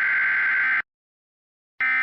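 Emergency Alert System SAME header: loud digital data bursts that encode the alert. One burst cuts off less than a second in, and after a pause of about a second the next begins near the end.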